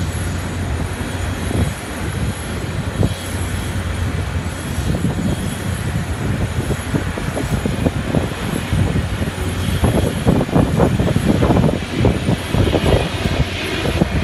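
Dassault Rafale's twin turbofan jet engines rumbling in flight during a display pass, the noise rough and crackling and getting louder from about ten seconds in as the fighter comes closer.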